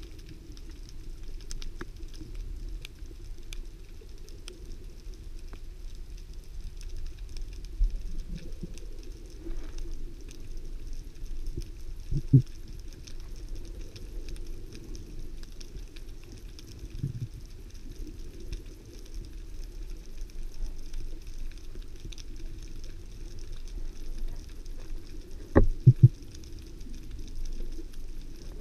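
Underwater ambience heard through an action camera's waterproof housing: a steady low rumble of water with a faint, scattered crackle of clicks. A few dull knocks break it, the loudest a quick double knock near the end.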